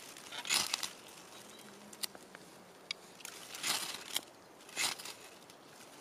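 Three short scrapes of a Buck 119 knife blade working at birch bark and tinder to light a fire, with a few light snaps and rustles of dry twigs between them.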